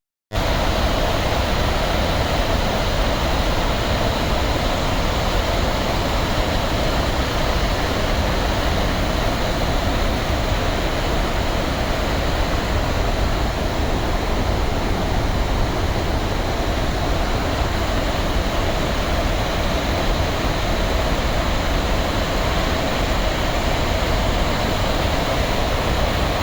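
Steady, loud roar of a large waterfall, an unbroken rush of falling water.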